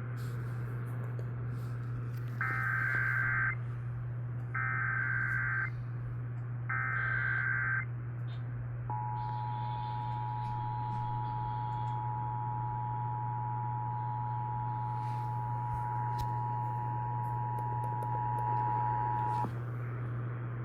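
Emergency Alert System header: three one-second bursts of SAME digital data, each a harsh buzzy warble, followed by the EAS two-tone attention signal, a steady dual-tone beep held for about ten seconds, all over a constant low hum.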